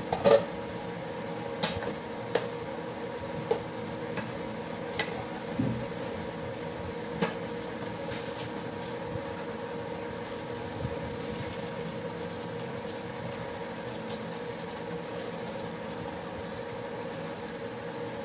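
Chicken and broth bubbling in a steel pot over a steady electric cooktop hum. A loud sharp metal clink comes right at the start, with several lighter clinks over the next seven seconds.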